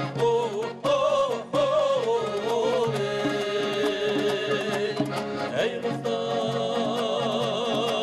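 Folk music: a voice holding long notes with wide vibrato over instrumental accompaniment.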